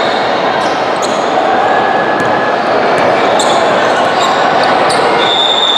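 A basketball being dribbled on a hardwood gym floor, repeated bounces over a steady din of gym noise and voices.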